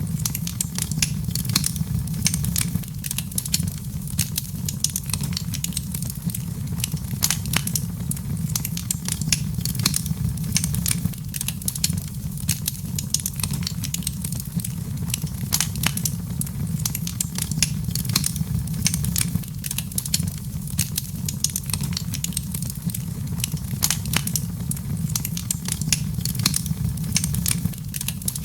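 Wood fire burning in a fireplace: frequent, irregular sharp crackles and pops over a steady low rumble of the flames.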